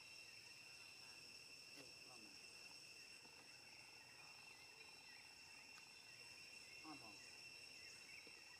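Near silence: a faint, steady high insect drone, with a few faint short calls.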